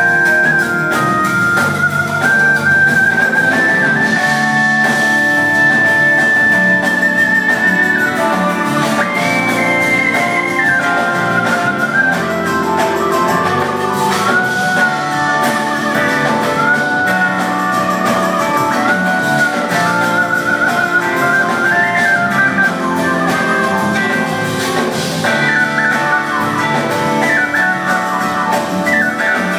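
Live band music led by an organ solo: a high melodic line of held notes and quick trills over bass, keyboards and drums, heard from the audience.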